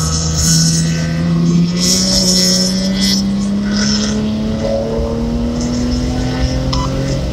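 BMW 330i ZHP's 3.0-litre inline-six heard from inside the cabin, pulling steadily under throttle out of a corner, its note rising slowly as the revs climb. Short bursts of hiss come and go over the engine note.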